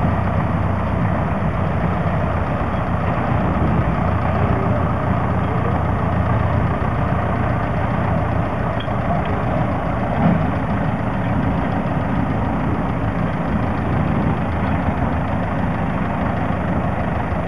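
A heavy engine idling steadily, with no rise or fall in speed.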